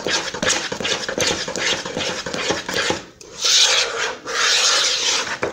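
A spoon stirring flour into a thick, sticky bread batter in a plastic bowl, scraping and rubbing against the bowl in quick, irregular strokes. The scraping grows louder for about two seconds in the second half.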